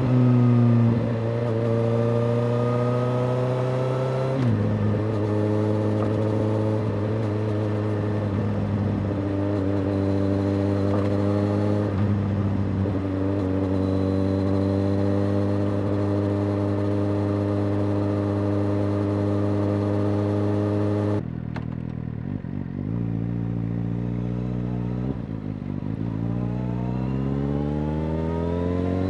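Suzuki GSX-S750's inline-four engine through a Yoshimura R-77J exhaust, ridden under way: a steady engine note that climbs slowly through the gears, with a drop in pitch at a gear change about four seconds in. About three-quarters through the throttle closes and it goes quieter and lower, then near the end the revs climb quickly as it accelerates again.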